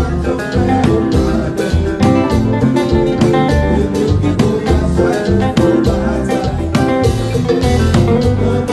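Konpa band music: electric guitar over a steady drum beat.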